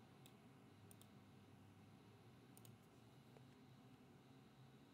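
Near silence broken by a few faint computer mouse clicks: a single click, then two quick double clicks.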